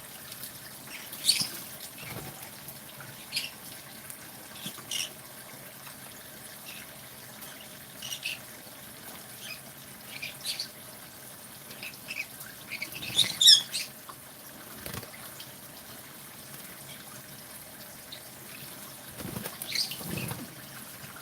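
Green-cheeked conures bathing in water: short, scattered bursts of splashing and wing fluttering, with the loudest flurry about two-thirds of the way through.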